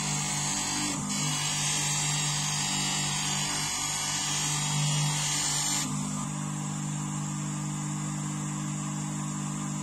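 Small bench grinder's electric motor humming steadily while the edge of a forged steel adze is pressed against its spinning felt polishing wheel, adding a high hiss: the edge is being polished. The hiss stops about six seconds in as the blade comes off the wheel, and the motor keeps running.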